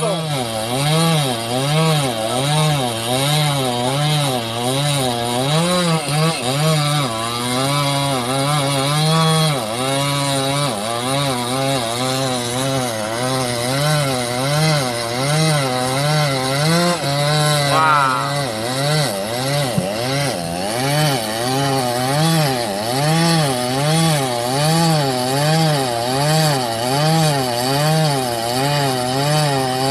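Petrol chainsaw cutting through a large hardwood log, its engine pitch rising and falling about once a second as the chain bogs under load and picks up again. Partway through, the saw briefly revs up.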